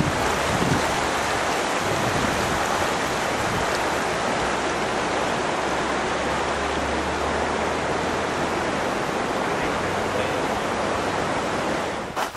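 Mountain creek rushing over rocks and rapids, a steady, loud wash of water noise that cuts off abruptly near the end.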